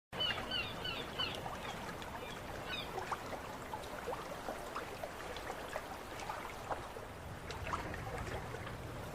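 Dockside ambience: water lapping and trickling under birds calling in quick series of short falling cries, loudest just after the start and again about three seconds in, with scattered faint knocks.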